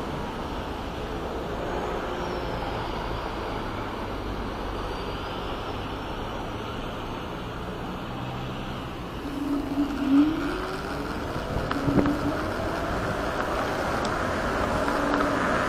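Wind and road noise from riding an electric scooter through city traffic: a steady rumble and rush. From about two-thirds of the way in, a whine climbs in pitch, with a couple of sharp knocks along the way.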